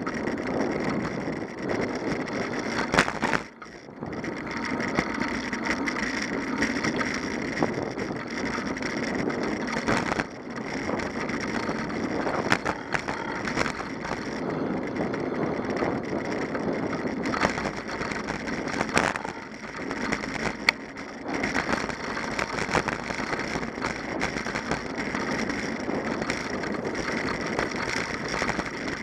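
Bicycle rolling along a park path, its tyres crunching over gravel, with a steady rumble and frequent rattling clicks; the noise briefly drops about three and a half seconds in.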